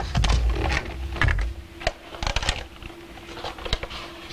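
Light plastic clicks and knocks from a hot tub control panel being handled after it has been pulled out of its housing, with a low rumble in the first second or so and a steady hum underneath.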